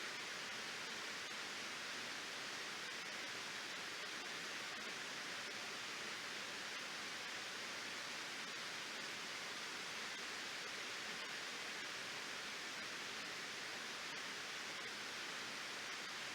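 Waterfall, a steady, even rush of water falling over a dam.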